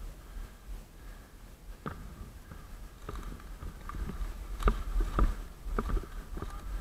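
Footsteps crunching over dry cut branches and brush: a series of uneven cracks and thuds, loudest about five seconds in.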